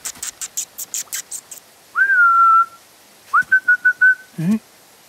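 Quick light patter of small scurrying feet, about six ticks a second, then a man whistling twice: one note that rises and is held steady, then another that rises and breaks into a quick warble. A short low vocal murmur follows near the end.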